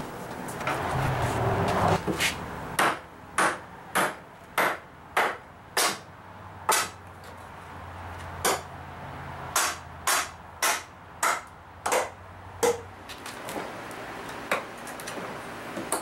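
Hammer blows, a quick regular series of sharp knocks at just under two a second, then slower, irregular strikes that die away to a few light taps. A rough scraping noise comes before the first blows.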